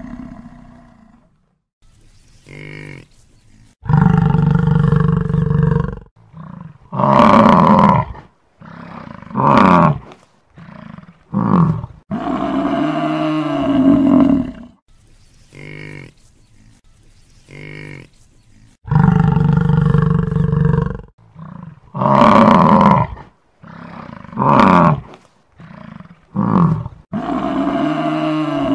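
Buffalo calling over and over: long, low calls of about two seconds each, mixed with shorter calls. The same sequence of calls repeats about every fifteen seconds.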